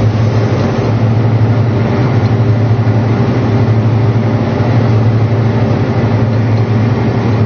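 John Deere 8295R tractor's diesel engine running steadily under load, a constant low drone with no change in pitch.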